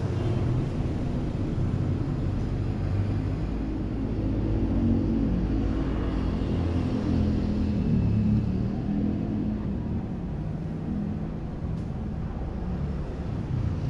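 A steady low rumble, with a faint hum that swells in the middle and then fades.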